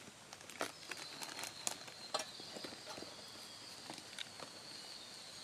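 Light, scattered clicks and taps of a metal spoon scooping soft vanilla ice cream from a plastic box into a cone. A steady high-pitched whine sets in behind them about a second in.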